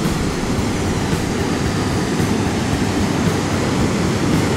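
Steady low roar of fast water pouring out of a dam's outflow into the river.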